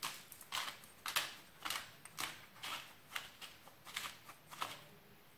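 Hand-turned pepper mill grinding pepper: about ten short grinding strokes, roughly two a second, stopping shortly before the end.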